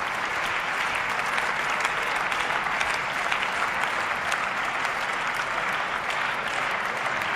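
Members of parliament applauding in a large debating chamber: many hands clapping steadily.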